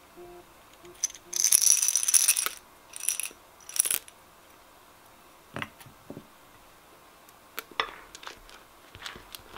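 Small candy pieces rattling in a small plastic cup as they are shaken out onto foamy slime, in one long burst about a second and a half in and two short ones near 3 and 4 seconds. Near the end come a few scattered clicks and soft squishes as a spatula starts stirring the slime.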